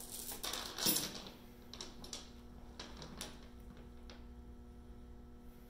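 Steel chain of an Isochain strength-testing device clinking and rattling as its bar is lifted into position. The rattling is loudest in the first second, then a few light clicks follow.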